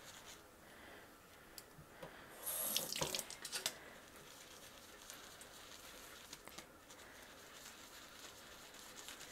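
Tap water running steadily into a stainless-steel sink while a makeup brush is scrubbed and rinsed. There is a louder scratchy stretch about two and a half seconds in.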